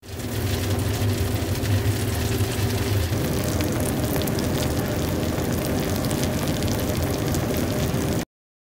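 Baked, panko-topped mac and cheese sizzling and crackling in a hot oven over the oven's steady hum; the deepest part of the hum drops away about three seconds in.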